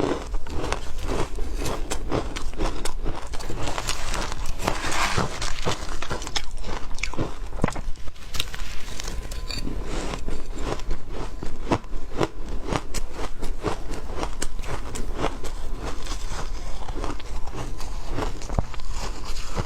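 Close-miked crunching of ice being bitten and chewed: a dense, irregular run of sharp cracks and crackles that goes on without a break.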